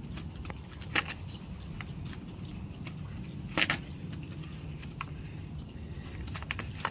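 Small clicks and taps of a pocket knife and bike parts being handled while working at a cable tie on a folded e-bike, with two sharper clicks about one and three and a half seconds in, over a steady low hum.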